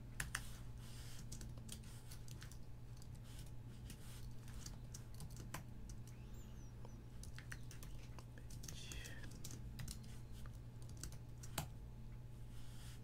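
Typing on a computer keyboard: irregular key clicks at an uneven pace, a few louder than the rest, over a faint steady low hum.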